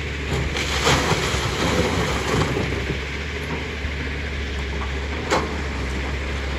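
Tata Hitachi excavator's diesel engine running steadily while its bucket tips a load of broken stone into a dump truck body, the rocks clattering and rattling for about two seconds near the start. A single sharp knock comes about five seconds in.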